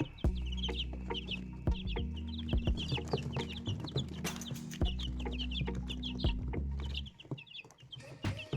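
Young chickens peeping: a dense run of many short, high calls, with scattered light taps. The calls thin out about seven seconds in.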